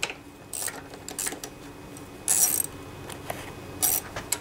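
Hand tools working on small-engine carburetor fasteners: a handful of short metallic clinks and rattles, with one longer rattle a little past halfway, as the nuts are loosened.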